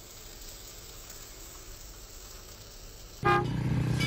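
Faint hiss of a hand pump sprayer misting wheel cleaner. About three seconds in, a loud train horn sounds several steady tones at once.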